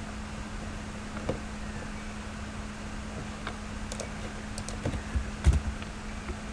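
Scattered clicks and taps of a computer keyboard and mouse over a steady low electrical hum, the clicks coming closer together and louder about four to five seconds in.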